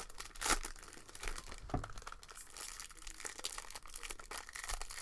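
Foil wrapper of a 2021 Bowman Draft baseball card pack crinkling and crackling as it is pulled open by hand, with a couple of louder crackles early on and near two seconds in.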